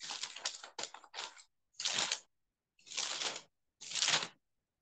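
Sheets of paper rustling and crinkling as they are handled, in about five short bursts of half a second or so, each cut off sharply.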